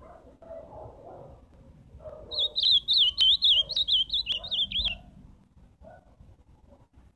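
Ultramarine grosbeak (azulão) singing one loud, fast, warbling song phrase of about two and a half seconds, starting about two seconds in.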